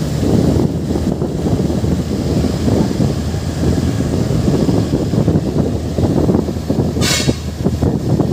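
Heavy trailer truck's diesel engine running under load as the truck creeps slowly round a bend, a dense low rumble, with a short hiss about seven seconds in.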